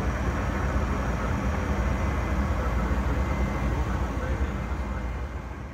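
Steady drone of an airliner in flight heard from inside the cabin, engines and airflow, fading out near the end.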